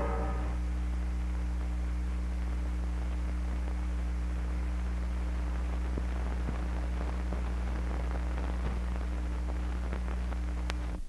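Steady low electrical hum with hiss and scattered faint crackles, the background noise of an old film soundtrack; the last of the music fades out at the start and the hum cuts off suddenly near the end.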